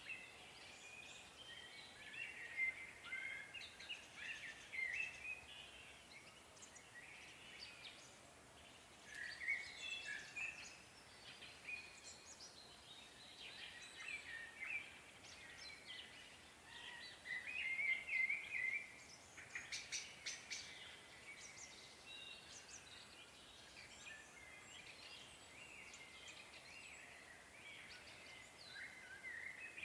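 Several songbirds singing and chirping, with overlapping short trills and calls, busiest in the middle, over faint background hiss.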